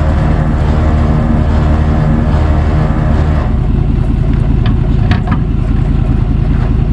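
Vehicle engine running steadily with a low hum, turning into a rougher low rumble about three and a half seconds in, with a few light clicks.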